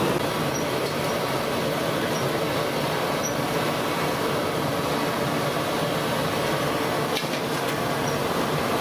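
Bondas deep-frying in a large pan of hot oil, a steady sizzling hiss, with a brief knock about seven seconds in.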